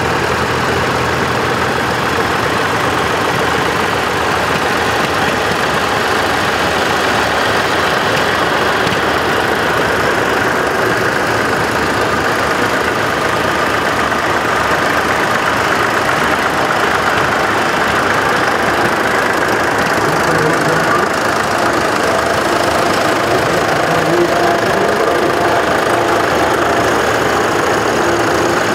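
Several vintage tractors, among them a Ford, a Fordson and grey Ferguson tractors, running as they drive slowly past one after another, their engines overlapping in a steady, loud mix.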